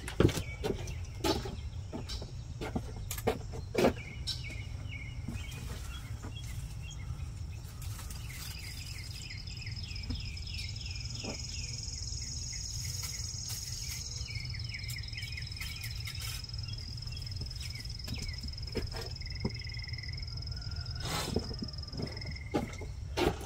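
Garden ambience: a steady low rumble with insects droning in a steady high tone through the middle and birds chirping. Scattered light clicks and knocks sound near the start and again near the end, around the handling of a wire cage trap.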